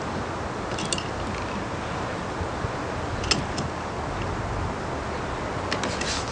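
Sharp light clicks and clacks from a sailing pirogue's stern-hung rudder and its fittings as the rudder blade is swung up and dropped back down: one about a second in, one a little after three seconds and a small cluster near the end, over a steady hiss of background noise.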